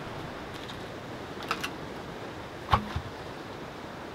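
Logs knocking together as they are handled: a couple of light clicks, then a single sharper knock with a dull thump about two-thirds of the way through, over a steady hiss of surf and wind.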